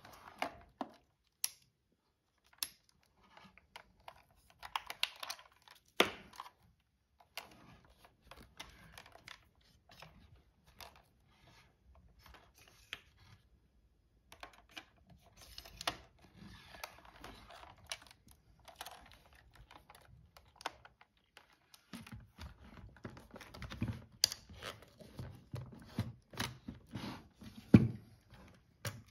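Hands handling small objects: scattered clicks and rustling with quiet gaps between, a few sharper clicks, and dull knocks in the last several seconds.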